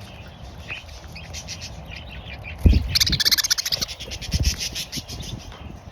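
Budgerigar chattering and warbling in fast scratchy bursts, loudest about three seconds in, with a couple of low thumps.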